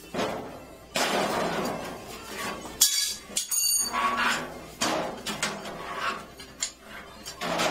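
Sheet-metal truck bed clanking and rattling as it is shoved and handled on a shop engine hoist: a run of metal clatters and scrapes, with a sharp clang and a brief high ringing about three seconds in.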